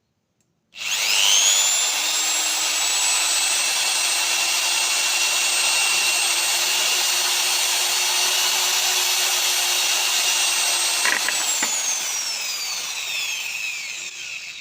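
Power drill with a size 6 bit drilling into a golf ball: it spins up fast about a second in and runs at a steady high whine. A couple of sharp knocks come about eleven seconds in, then the whine falls away as the drill slows down near the end.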